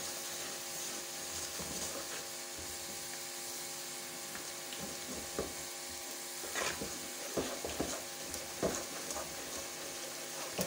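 Wooden spatula stirring sesame seeds through thick hot jaggery syrup in a kadai, with scattered scrapes and knocks against the pan from about five seconds in, over a steady mechanical hum.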